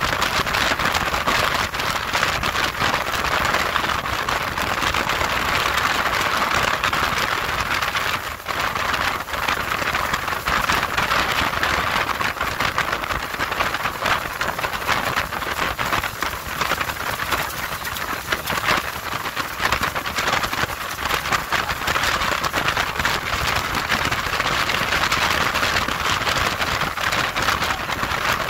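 Steady rushing hiss of water on a boat, with a dense fine crackle like spray or rain pattering on the hull and deck.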